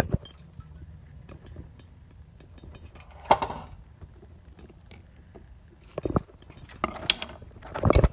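Claw hammer striking the metal case of a DirecTV satellite receiver on concrete: one blow about three seconds in, then several more in quick succession in the last two seconds.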